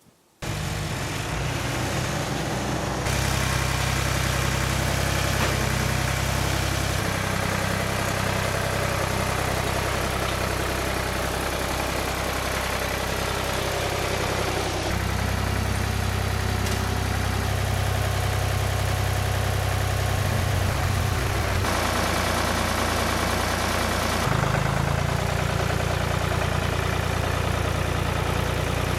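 Engine of a Wood-Mizer portable band sawmill running steadily, cutting in abruptly about half a second in. Its note shifts several times as the load changes.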